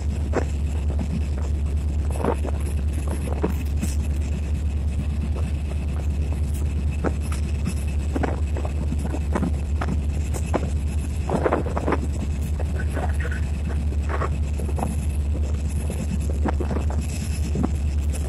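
EMD SD24 diesel locomotive heard from inside its cab, its 16-cylinder turbocharged EMD 567 two-stroke engine running with a steady low drone. Short knocks and rattles come every second or two as the locomotive rides over rough track.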